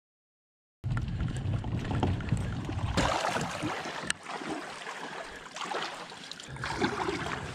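Wind rumbling on the microphone and shallow water sloshing around a kayak as its wheeled launch cart is handled in the water, starting after about a second of silence. A single sharp knock comes about four seconds in.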